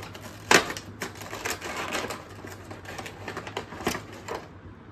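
Toy packaging being handled and opened by hand: an irregular run of sharp clicks and rattles, with the loudest snap about half a second in.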